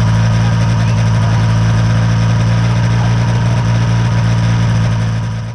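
An engine idling steadily, then fading out at the very end.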